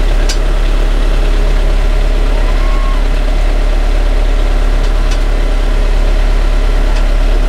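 Steady low drone of the sailboat's inboard engine running, heard below deck, with a few faint clicks.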